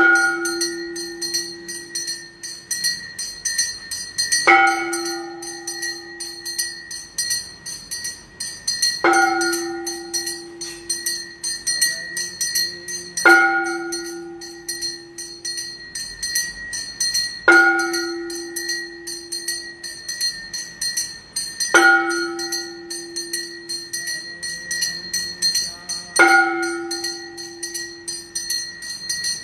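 Temple aarti bells: a small hand bell rung rapidly and without pause, while a deeper, larger bell is struck about every four seconds, seven strokes in all, each ringing on and fading.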